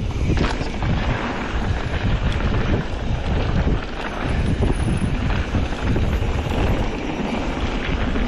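Wind buffeting the microphone and a steady rumble of mountain bike tyres rolling fast over a dirt trail, with frequent small knocks and rattles from the bike over the rough ground.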